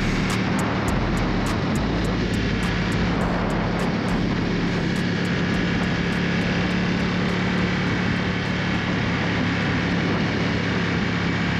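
Ducati XDiavel's 1262 cc V-twin engine running at a steady cruising speed, with wind rushing over the microphone.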